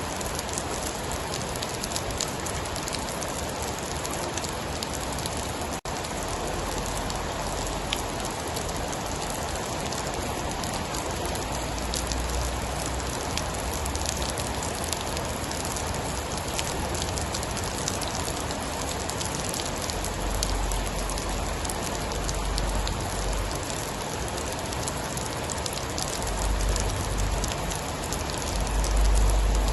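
Steady heavy rain: a dense hiss with fine patter of drops. Deep low rumbles swell several times in the second half.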